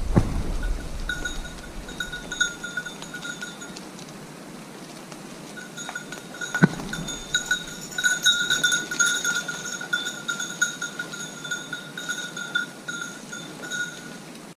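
A setter's collar bell jangling as the dog works through the undergrowth, breaking off for a second or two partway through and then ringing on. Rustling brush and a sharp knock about six and a half seconds in lie underneath.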